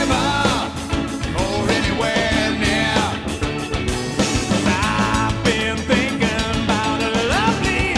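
Rock band playing an instrumental passage: a lead line of bending, sliding notes over drums and bass.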